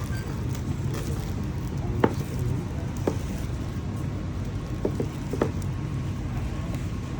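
Cardboard box and packaging being handled and opened: a few short clicks and taps, the loudest about two seconds in, over a steady low rumble.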